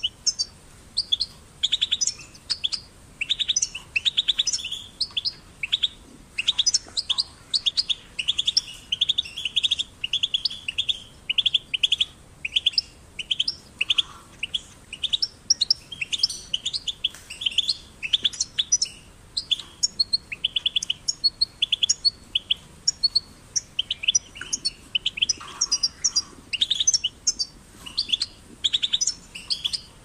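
European goldfinch singing: fast twittering phrases of high chirps and trills, one after another with only short pauses between them.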